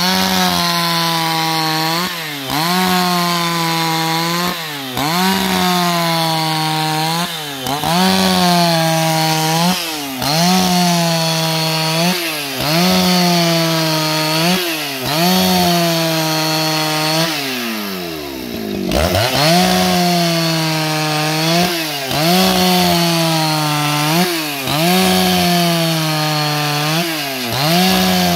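Husqvarna 281XP two-stroke chainsaw ripping a plank lengthwise at full throttle. Its engine note sags under load and picks up again every two to three seconds as the bar is fed through the cut. About two-thirds of the way through, the revs drop steeply for a moment and then climb back.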